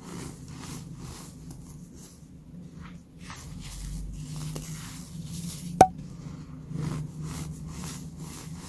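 Hands squeezing and crumbling a heap of baking soda with sprinkles: repeated crunchy squeaks and crackles with each squeeze. A single sharp click stands out about six seconds in.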